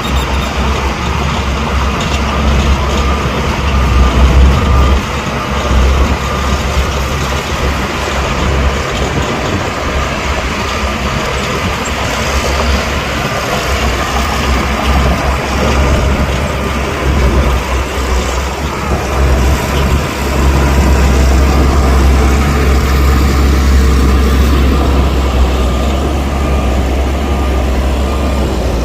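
Heavy diesel earthmoving machinery working: a deep, steady engine rumble with rough mechanical noise above it, getting louder about 20 seconds in.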